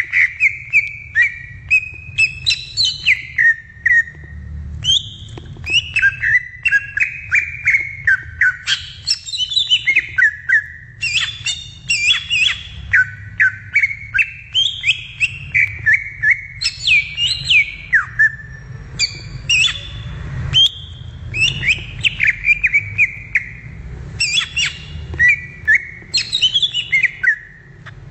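Green leafbird (cucak ijo) singing continuously: rapid phrases of sweeping whistled notes and chirps broken by sharp chip notes, over a low steady rumble.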